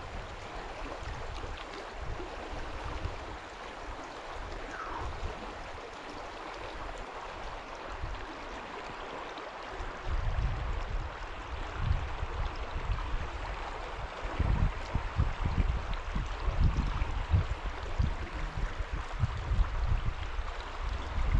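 A small stream's water running with a steady rushing hiss. About halfway through, low rumbling on the microphone comes in and grows stronger.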